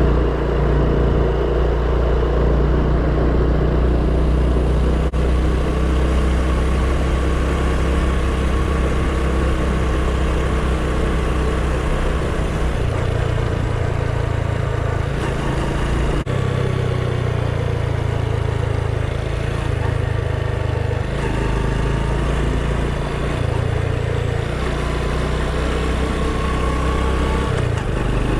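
Honda Super Cub's single-cylinder four-stroke engine running under way, its note shifting up and down several times as the speed changes.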